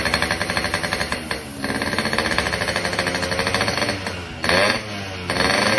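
Yamaha RX King's single-cylinder two-stroke engine running with a rapid, even popping beat, revved briefly about four and a half seconds in.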